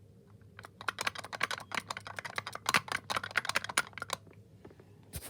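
Dewhurst US90 Big lift push buttons pressed over and over: a fast, uneven run of sharp clicks that starts about half a second in and stops about four seconds in.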